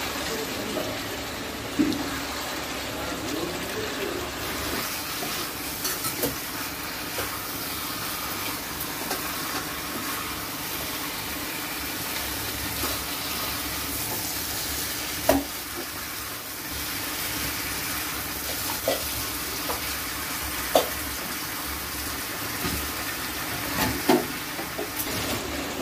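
Chicken and potato curry sizzling in a nonstick pan as it is fried down, stirred with a wooden spatula that knocks sharply against the pan a few times.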